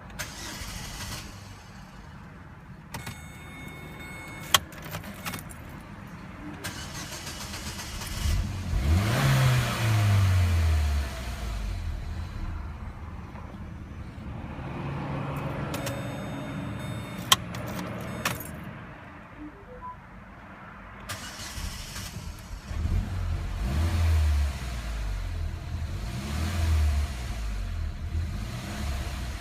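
Z20NET 2.0 turbo four-cylinder petrol engine idling roughly, with one rise and fall in revs about a third of the way in and an uneven, surging idle near the end. This is the rough idle and near-cutting-out that shows after the fuel tank has been filled. Two sharp clicks are heard.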